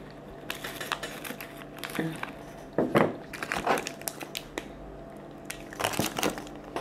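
Plastic chocolate-bar wrappers crinkling and rustling as the bars are picked up and one is opened, in irregular crackles that are loudest about three seconds in and again near the end.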